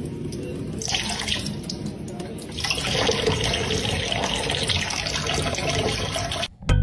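Water running steadily, like a tap running into a sink. It grows louder about a second in and again near three seconds, and cuts off abruptly just before the end.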